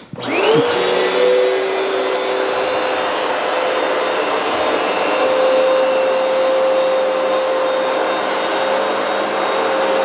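Hoover PowerDash Advanced Pet carpet cleaner switched on: its suction motor spins up with a quickly rising whine in the first second, then runs at a steady pitch over a loud hiss of suction.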